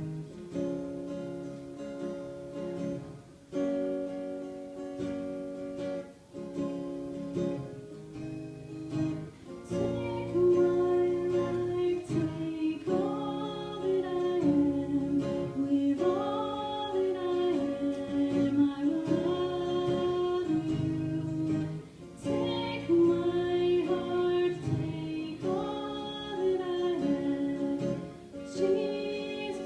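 Acoustic guitar strumming chords, joined about ten seconds in by a woman singing the melody over it.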